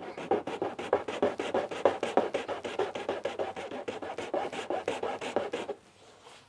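Hand file rasping along the freshly cut edge of a plastic ATV fender, smoothing it flat after knife trimming. Quick back-and-forth strokes, several a second, that stop near the end.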